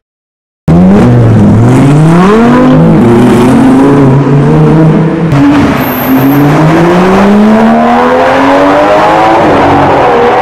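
Loud high-performance car engine revving up and down several times, then accelerating hard with one long, steady climb in pitch.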